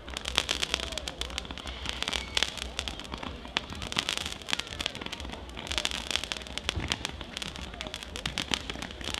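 Fireworks display: a fast, irregular string of sharp pops and crackles as fans of comets are fired up from the ground.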